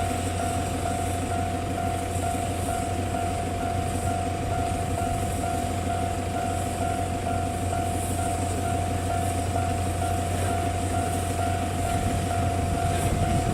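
Train hauled by the C57 steam locomotive running through the level crossing, a steady rail noise, while one high tone rings without a break, most likely the crossing's warning alarm.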